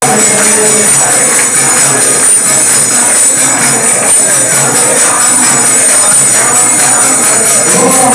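Devotional temple music: hand cymbals jingling on a steady beat over a wavering melody.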